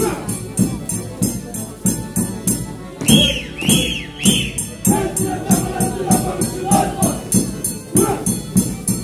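Lively traditional dance music with a steady quick drumbeat and rhythmic jingling on every beat. Three high swooping tones sound about three seconds in.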